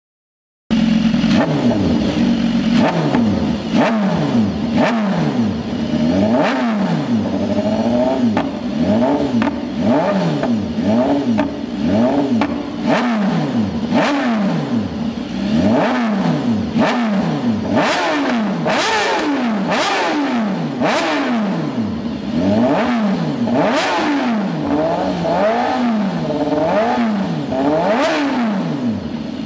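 BMW S1000RR inline-four breathing through an SC-Project CR-T carbon slip-on silencer, revved in quick blips from idle, each rising and falling about once a second. Sharp cracks from the exhaust come between some of the blips in the second half.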